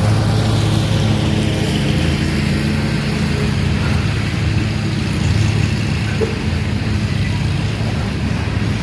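Diesel freight locomotives pulling a heavy grain train at a crawl, a loud steady engine drone with a deep hum: the engines are labouring under the load.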